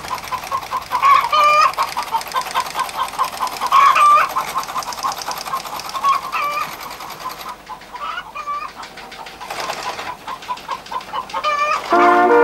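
Hen clucking amid a rapid run of short chick cheeps, with a louder hen call every couple of seconds. Trumpets start playing just before the end.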